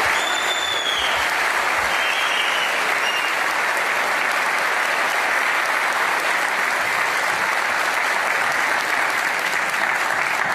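Large audience applauding steadily in a big hall.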